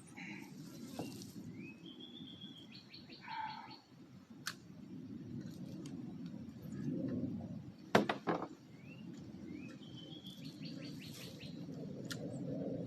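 A songbird singing a short phrase of rising whistled notes followed by a quick run of higher notes, heard twice, over a steady low rumble. A few sharp knocks about eight seconds in are the loudest sound.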